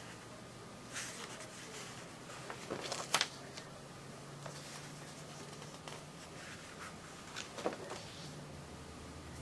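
Paper sheets of a ring-binder catalog being handled and turned: a few short rustles and crackles, the sharpest about three seconds in and another near the end, over a low steady hum.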